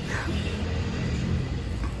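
Soft music over a steady low rumble.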